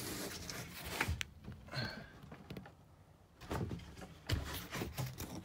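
Empty cardboard box being manoeuvred into a narrow cabinet opening: scattered scrapes, rustles and dull knocks of the cardboard bumping against the opening.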